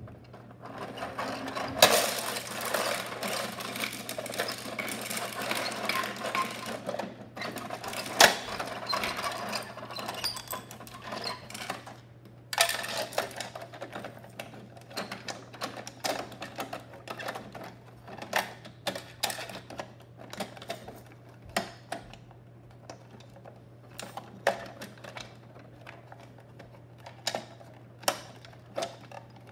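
Hands working a plastic Bruder toy garbage truck: dense clicking and rattling of its plastic parts through the first half, with a couple of sharper knocks, then scattered single clicks.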